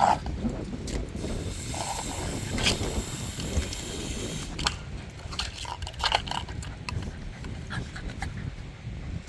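Labrador puppies playing, moving and breathing, with scattered crackling clicks and rustling throughout.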